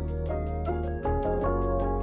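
Background music with a steady beat: held chords over a deep bass, with light ticks about four times a second.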